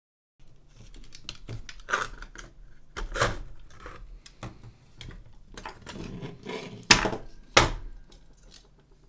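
Sheet-metal chassis parts and a metal-cased power supply being handled and set down on a wooden tabletop: irregular clicks, taps and knocks, with two louder knocks near the end, over a faint low hum.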